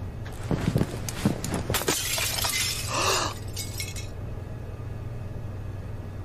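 A few light knocks, then a crash with a shattering, clattering noise about two seconds in that lasts for a second or two before dying away.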